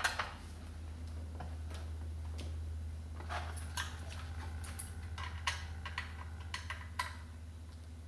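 Light metallic clicks and taps, scattered irregularly, as a sheet-metal laptop hard-drive caddy and a small Phillips screwdriver are handled, over a steady low hum.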